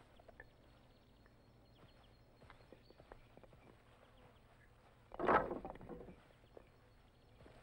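Wooden poles knocking against each other as they are stacked upright into a conical charcoal-kiln pile. Light scattered clicks of handled sticks run throughout, and a loud clatter comes about five seconds in, when an armful of poles is set against the stack.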